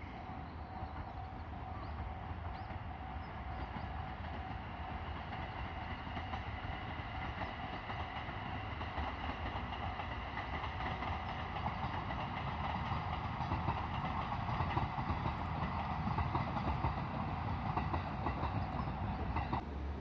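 A JR Suigun Line diesel railcar train (KiHa E130 series) running along the line at a distance, its engine and wheel noise growing steadily louder as it draws nearer.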